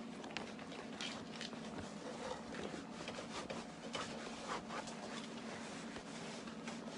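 Faint rustling and scattered small clicks of hands handling gear, over a steady low hum.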